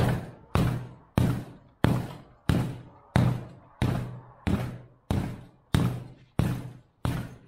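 A wooden board beating an old upholstered truck bench seat to knock the dust out: a sharp whack about every two-thirds of a second, twelve in all, each fading quickly.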